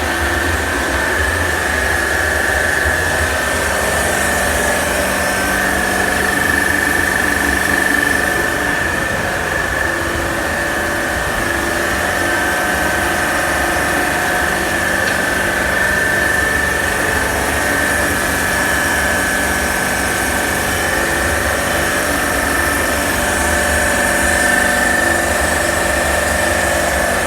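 Chiller plant machinery running steadily: a constant low rumble with a high, even whine over it.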